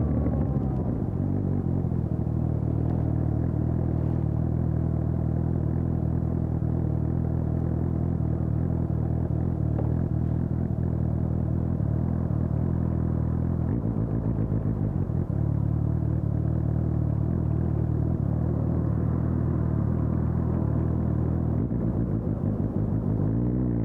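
2020 Suzuki GSX-S750's inline-four engine, through a Storm aftermarket exhaust, idling steadily at one even pitch. Near the end the revs rise as it pulls away.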